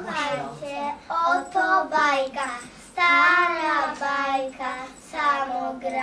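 A young girl singing solo: one high child's voice in short phrases with brief pauses, holding a longer note about halfway through.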